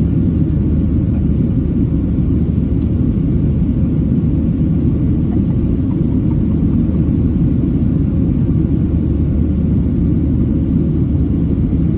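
Cabin noise of a Boeing 737-700 airliner in flight: a steady, loud low rumble of the engines and airflow, unchanging throughout.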